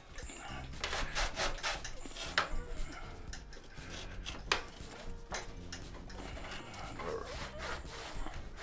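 Cloth wiping and rubbing over the plastic deck of a Pride Go-Go folding scooter in repeated irregular strokes, with a few sharp taps in between.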